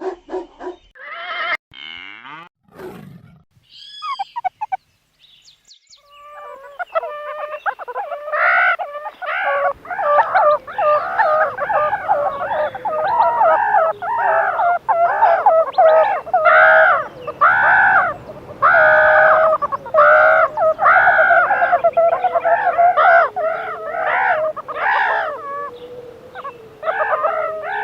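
Meerkats calling: a long run of repeated rising-and-falling calls, one to two a second, starting about six seconds in after a few short sweeping sounds.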